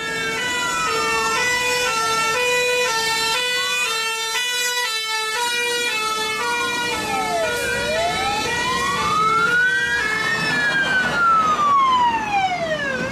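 Emergency vehicle sirens: a two-tone hi-lo siren switching between two pitches about every half second, with a wailing siren that slowly rises and falls over it. The sound cuts off suddenly at the end.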